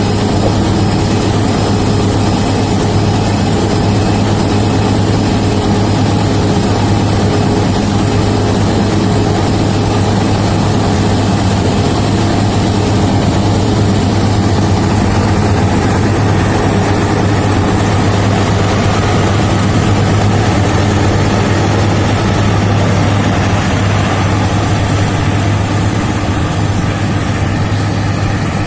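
Combine harvester running steadily while harvesting rice: a loud, even engine note with a strong low hum.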